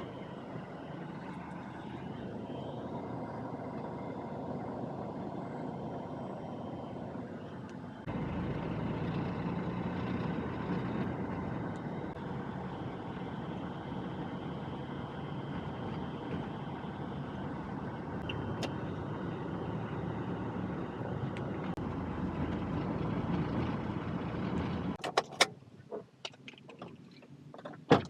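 A motor vehicle running with steady engine and road noise, a little louder from about eight seconds in. Near the end the noise falls away and a few sharp clicks and knocks sound.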